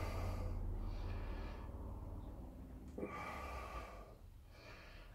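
A person breathing heavily close to the microphone, four short breaths about a second apart, with a sharp click about three seconds in.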